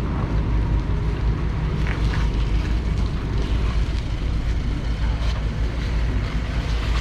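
River ferry's engine running with a steady low rumble.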